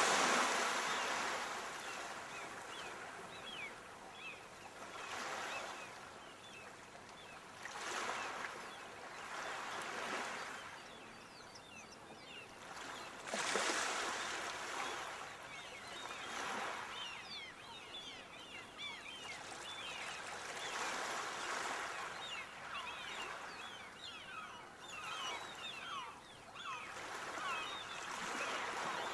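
Sea waves washing onto the shore, the noise swelling and falling back every few seconds, with a hissing, fizzing wash between surges.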